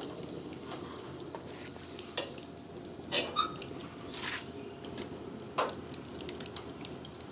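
Coconut-shell and ember fire crackling with a steady hiss and scattered sharp pops, the strongest cluster about three seconds in.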